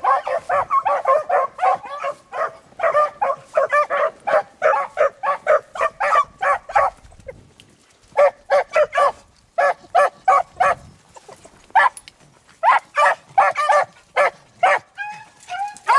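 Beagles baying on a rabbit's scent trail: a rapid, steady run of short calls from several dogs, with a lull about seven seconds in before the cry picks up again in bunches.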